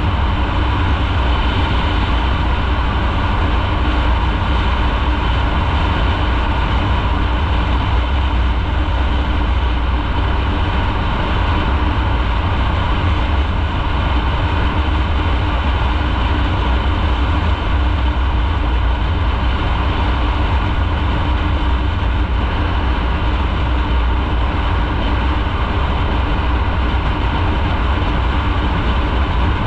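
Motorcycle on the move at a steady pace: the engine runs evenly under a heavy, steady low rumble of wind and road noise, with no revving or gear changes.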